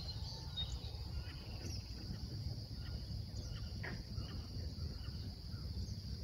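Marsh ambience: a steady, high-pitched chorus of insects, with a few short bird chirps over a low rumble.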